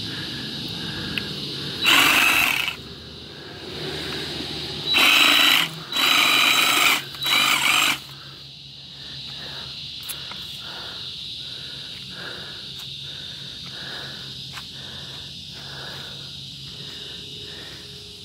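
Cordless DeWalt 20V reciprocating saw running and cutting through sago palm fronds, in four loud bursts over the first eight seconds, then stopping. Cicadas buzz steadily in the background throughout.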